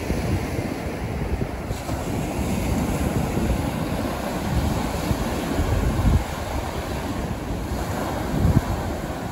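North Sea surf washing onto a sandy beach, with wind buffeting the microphone in gusts that are heaviest about six and eight and a half seconds in.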